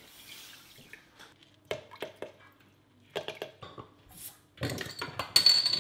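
Salt poured from a steel cup into a stainless steel stockpot of water, followed by a few sharp metal clinks. Near the end a beer bottle is opened with a bottle opener: the cap comes off with a short, loud hiss of escaping gas.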